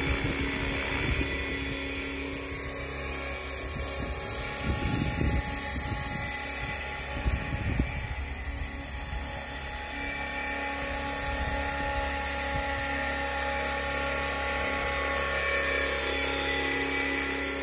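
Align T-Rex 500 radio-controlled electric helicopter in a scale AS350 Ecureuil body in flight: a steady whine from its motor and rotor drive, growing a little louder near the end as it passes close. Wind buffets the microphone in low rumbles around the middle.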